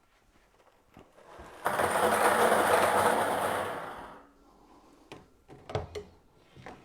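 Plastic raffle balls rattling together for about two and a half seconds, then a few light knocks.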